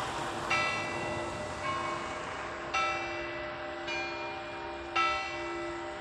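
Church bells in a belfry being rung, with smaller bells struck in turn about once a second, five strokes at changing pitches, each ringing on over the steady hum of a deeper bell.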